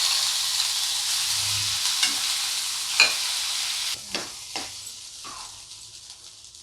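Freshly ground ginger paste sizzling hard as it goes into hot ghee in a pan, with a spoon knocking against the pan a few times as it is stirred. The sizzle drops sharply about four seconds in and then dies down.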